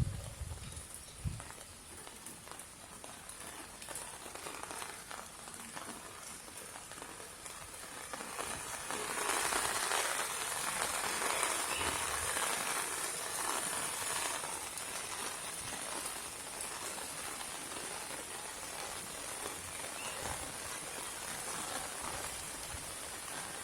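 Steady rain falling in a courtyard, with a few low knocks in the first second or two. The rain swells noticeably heavier about nine seconds in, then eases back to a steady downpour.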